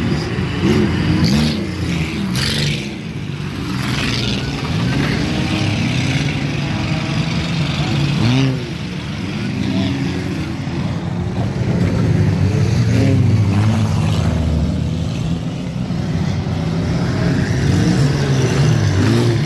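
A pack of four-cylinder street stock enduro race cars running laps on a dirt oval. Several engines overlap, revving up and falling back as the cars go through the turn and pass by.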